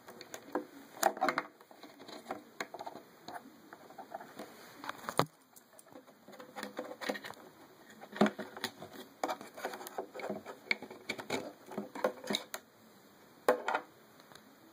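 Irregular plastic clicks, taps and handling noise as a wiring harness's white plastic clips are pushed into the holes of a taillight housing, with one louder click near the end.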